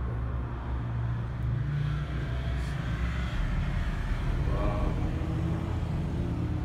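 Steady low rumble of a moving gondola lift cabin on its haul rope, heard from inside the cabin as it runs up to a support tower's sheave wheels. A brief higher-pitched sound rises over the rumble past the middle.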